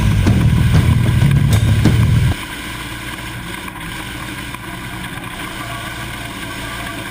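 Off-road race vehicle heard from inside its cab: engine drone with wind and road noise while driving on a dirt track. It is loud and deep for the first two seconds or so, then drops suddenly to a quieter steady drone.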